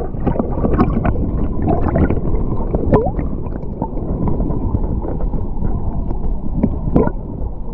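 Fast river water rushing and gurgling close by, a loud steady rush with scattered small splashes and gurgles.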